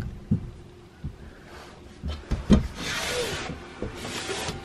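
A few sharp knocks and two scraping, rubbing noises, with a camera drone's faint steady hum behind them.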